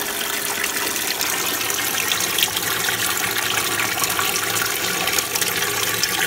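Water pouring and churning in a plastic feeder tub, steadily washing sand down into a Gold Cube gold concentrator fed by a recirculating pump, with a faint steady hum underneath.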